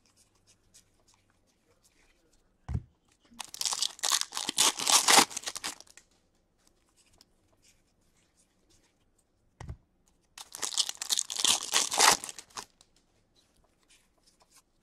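Wrapper of a hockey card pack being torn open and crinkled, twice, each time a second or so after a short low knock.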